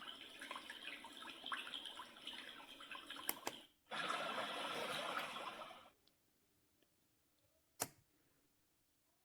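Built-in water nature sounds playing from the LIORQUE sunrise alarm clock's speaker: one running-water track, then after a brief break a second, denser water track that cuts off about six seconds in. A single sharp click comes near the end.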